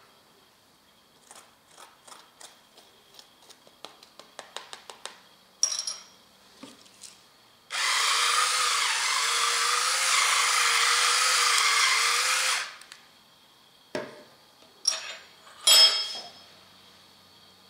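Electric pepper mill grinding black pepper for about five seconds, a steady motor whir, preceded by a run of light clicks. Near the end a few sharp clinks of a metal fork on a china plate.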